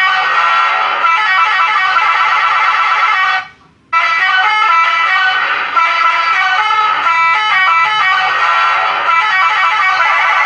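Electronic telolet bus-horn melody played loud through a toa-style horn loudspeaker: a fast run of stepping electronic notes. It breaks off for a moment about three and a half seconds in, then starts again.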